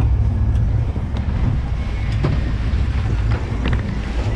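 Steady low rumble of a sportfishing yacht's engines under way or holding position offshore, with wind buffeting the microphone and a few faint clicks.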